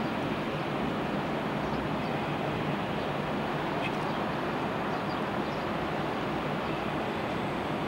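Steady rushing noise of sea surf and wind, even and unbroken throughout.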